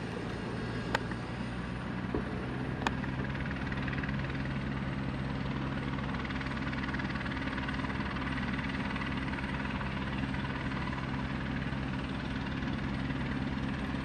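Helicopter idling on the ground with its rotor turning: a steady engine and rotor drone. Two short sharp clicks about one and three seconds in.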